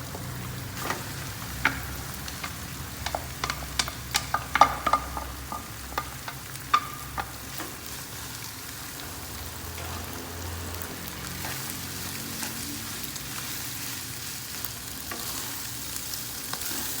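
Fried rice frying in butter with half-cooked scrambled eggs: a spatula knocks and scrapes against the pan in a quick run of sharp clanks over the first several seconds, then a steady sizzle with stirring.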